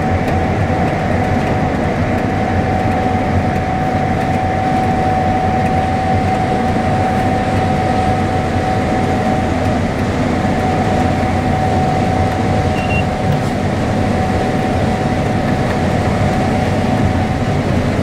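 Gleaner S97 combine harvesting dry corn, heard from inside the cab: a steady machine drone with a constant high whine running through it.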